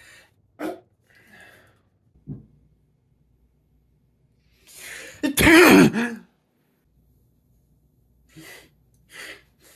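A person sneezing: a few short sniffs and breaths, then a rising breathy intake and one loud sneeze about five seconds in, followed by a few short sniffs.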